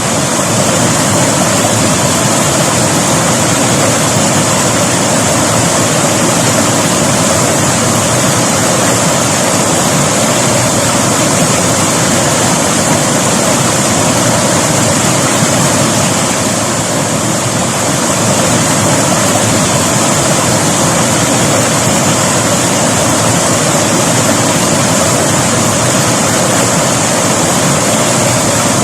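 River water flowing, a steady, loud rush without a break.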